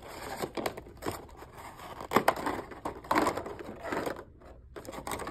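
Cardboard box and its packaging being opened and handled: irregular rustling and scraping with scattered sharp clicks as the model is worked out of the box.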